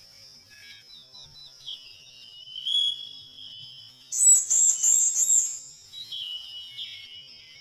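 Songbirds singing: whistled phrases and warbles, with a loud, rapid high trill of repeated falling notes from about four seconds in to about five and a half seconds. A steady high-pitched drone runs underneath.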